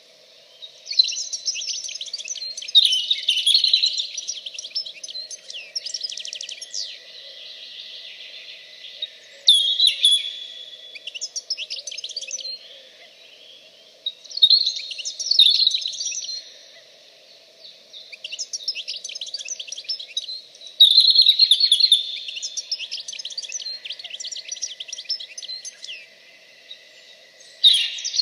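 A songbird singing, repeated phrases of rapid high trills and chirps each a couple of seconds long, separated by short pauses, over a faint steady background hum.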